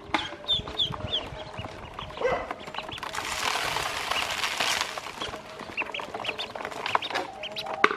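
A group of ducklings peeping: many short, high peeps that fall in pitch, with sharp ticks of bills pecking on a plastic basin. From about three to five seconds in, a rushing, rattling hiss as feed grains are scattered into the basin.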